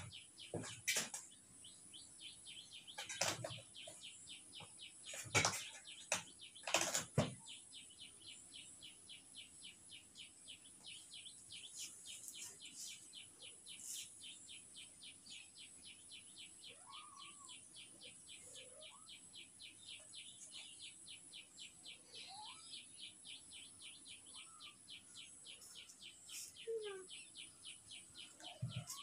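A fast, even run of small high chirps, about four a second, over a faint steady high tone. A few sharp knocks fall in the first seven seconds.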